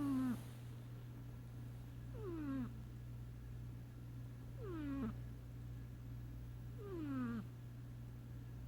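Domestic cat snoring in its sleep: on each breath a short pitched note slides downward, four times about two and a half seconds apart, over a steady low hum.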